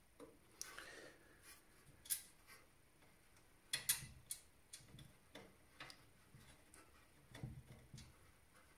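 Small, irregular clicks and taps of a screw being driven to fix an SSD into a PC case's drive mount, with a louder pair of clicks about four seconds in.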